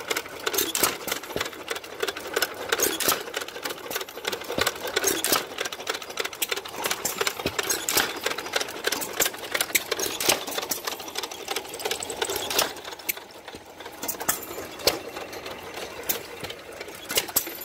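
Small antique stationary gas engines running, a dense, irregular clatter of rapid clicks and knocks.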